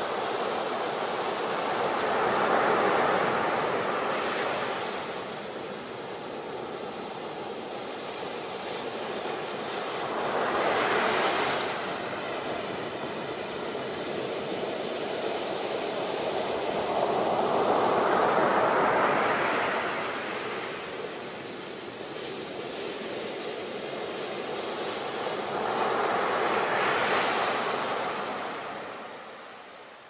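Ocean surf: waves breaking and washing ashore in slow surges, four in all, each swelling up over a few seconds and then fading back into a steady hiss.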